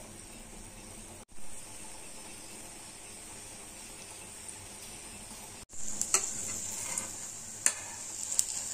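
Banana pancake frying in freshly added hot oil on a flat tawa: a steady sizzle that breaks off for an instant twice and grows louder about six seconds in. Near the end a metal spatula clicks and scrapes against the pan as it slides under the pancake.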